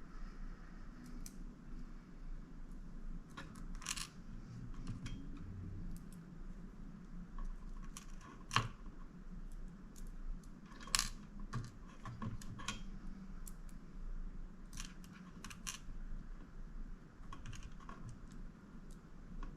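Scattered light clicks and taps of small computer parts and a screwdriver being handled inside an open mini PC while an NVMe SSD is fitted, the two sharpest about eight and a half and eleven seconds in.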